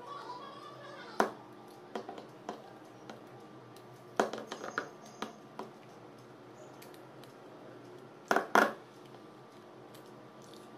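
Screwdriver prying and tapping at the plastic body of a vending machine's water drain valve as it is opened: a scattered string of sharp clicks and knocks, with two louder knocks near the end.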